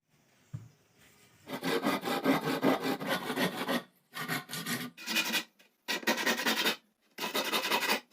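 A hand tool rasping against bamboo in four bursts of strokes, the first about two seconds long and the rest shorter, with short pauses between them.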